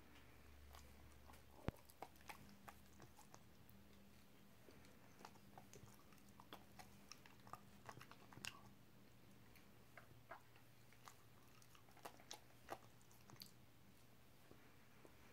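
A dog chewing banana: soft, wet mouth clicks and smacks at irregular intervals, with one sharper click about two seconds in.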